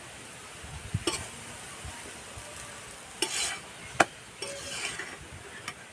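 Metal spatula tapping and scraping on an iron tawa as a paratha fries in oil, over a steady sizzle. A few sharp clicks, the loudest about four seconds in, with short scrapes around three and a half and five seconds in.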